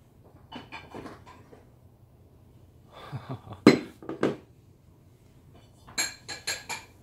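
Dishes being set down and moved on a wooden table, clinking and knocking against each other in three short clusters, the loudest clink about halfway through and a run of four ringing clinks near the end.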